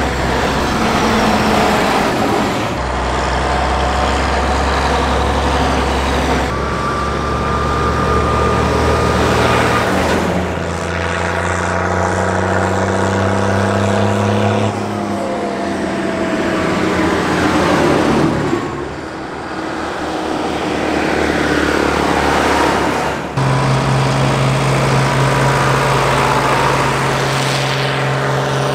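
Diesel engines of Mercedes-Benz MB trac tractors running as the tractors drive past one after another, the engine note falling in pitch as they go by. The note changes abruptly every few seconds between passes.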